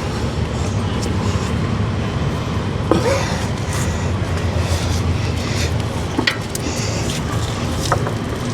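Steady low mechanical hum with a few light clicks and taps.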